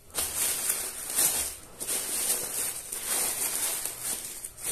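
Plastic courier mailer bag rustling and crinkling as it is pulled open by hand, in uneven swells.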